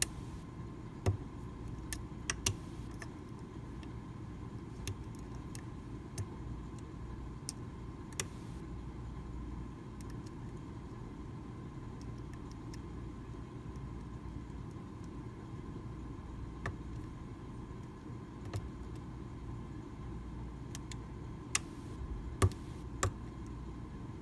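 Lock pick working the six chisel-tipped pins of a Medeco original mortise cylinder under tension: scattered sharp little clicks of metal on metal, a few seconds apart, a cluster of the loudest near the end, over a steady low hiss.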